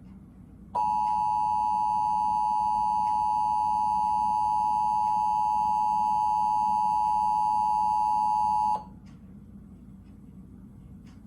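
Emergency Alert System attention signal: the two-tone alert of 853 and 960 Hz sounding together, steady for about eight seconds, starting just under a second in and cutting off suddenly. It marks the start of an EAS alert, here a national test.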